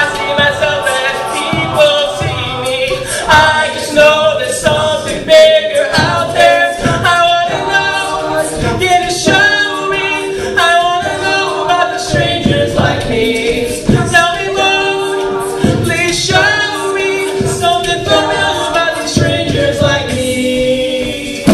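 Men's a cappella group singing live in close harmony, several voices holding chords together, with a steady pattern of sharp clicks running through it.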